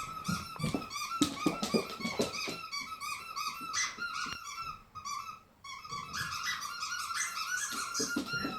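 Golden retriever puppy whining: a fast, unbroken string of short, high-pitched squeaky whines that pauses briefly about midway, with some low knocks and scuffles beneath.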